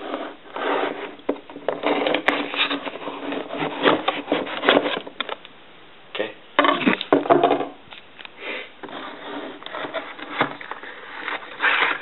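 A small cardboard box being worked open and handled: irregular scraping and rubbing of cardboard, with many short sharp scratches and knocks.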